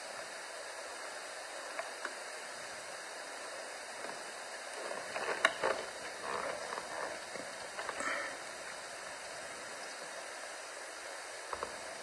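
Outdoor ambience: a steady faint hiss, with a cluster of short faint sounds about five to eight seconds in and two quick clicks near the end.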